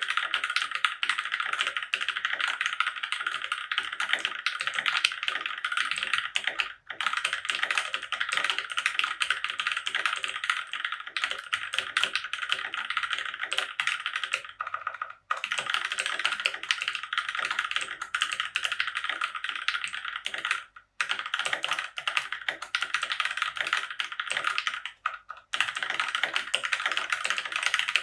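Continuous fast typing on a Keychron K6 aluminium mechanical keyboard with Gateron Brown tactile switches: a dense run of key clacks, broken by a few brief pauses.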